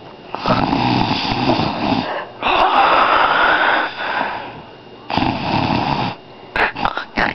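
A child imitating snoring with the voice: three long snores, the last one shorter.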